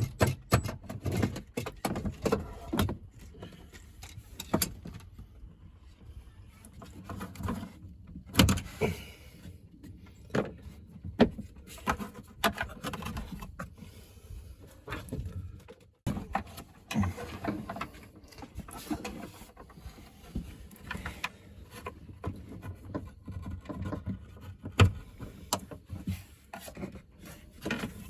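Irregular clicks, taps and rubbing of hand work on a side-by-side's wiring and fittings, with short quiet gaps between.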